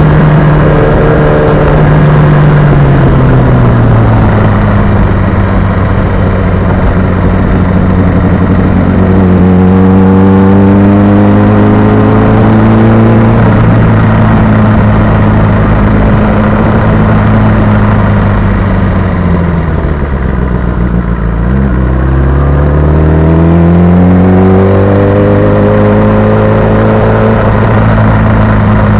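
Sport motorcycle engine running under way, with a steady rush of wind noise. The engine note eases down over the first few seconds, holds steady, drops low about twenty seconds in as the bike slows, then climbs again as it accelerates.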